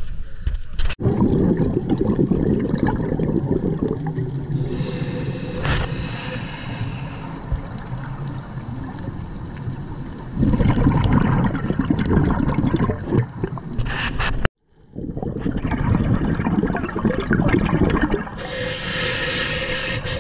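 Underwater camera audio: a dense, low, muffled rushing of water, with hissing bursts of scuba exhaust bubbles about five seconds in and again near the end. The sound breaks off briefly about fourteen seconds in.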